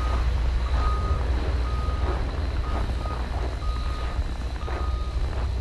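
A vehicle's reversing alarm beeping about once a second, each beep about half a second long, over a steady low rumble.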